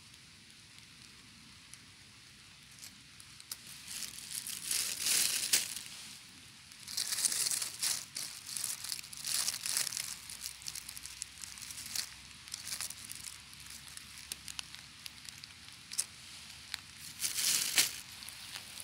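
Dry leaf litter and spiky chestnut husks crackling and rustling as they are handled, in a few short bursts with small crackles between, after a quiet first few seconds.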